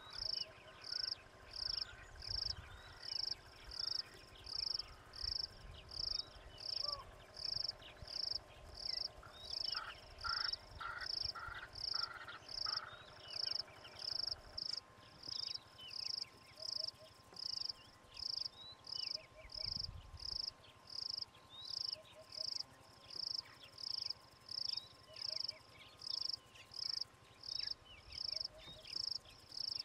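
An insect chirping steadily and high-pitched, about three evenly spaced chirps every two seconds.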